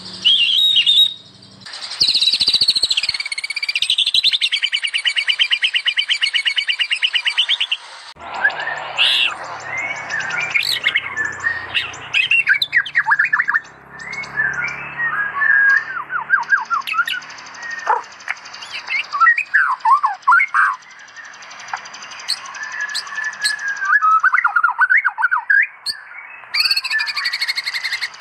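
White-rumped shamas singing loud, varied song in a series of separate recordings: a fast, even trill for the first several seconds, then a mix of whistled phrases, chirps and sweeping notes.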